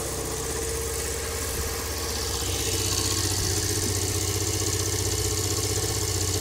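Small 50cc motorbike engine running steadily at idle, a little louder after about two and a half seconds.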